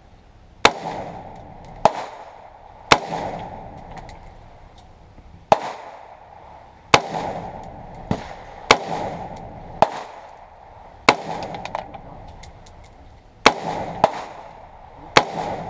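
Shots from a DPMS AR-15 semi-automatic rifle: about a dozen sharp cracks, fired singly at uneven intervals of roughly one to two seconds, with a few closer pairs, each followed by a short ringing echo.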